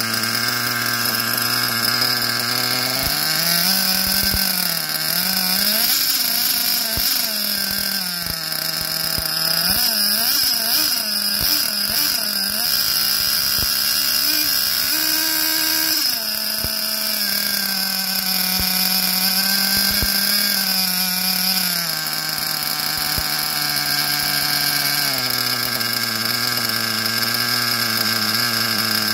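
SH .21 two-stroke nitro glow engine with a tuned pipe, running on the bench with its mixture set rich. The pitch wanders up and down unsteadily for several seconds, holds steadier for a while, then drops in two steps in the second half.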